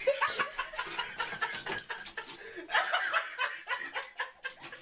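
A person laughing quietly in short breathy chuckles and snickers, mixed with a run of small clicks and knocks.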